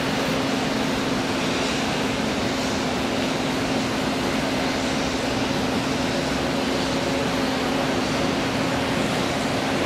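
Steady, even rush of jet engine noise with a constant low hum from an Airbus A380 taxiing at idle power.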